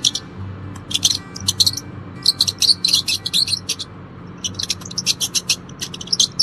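Small birds chirping in quick runs of short, high notes that break off twice and start again, over steady background music.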